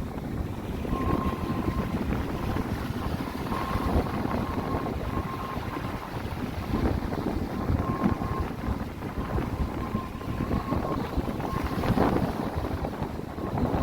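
Sea waves and wind, with wind buffeting the microphone: a low, uneven rushing noise that swells and eases. A faint thin tone comes and goes over it.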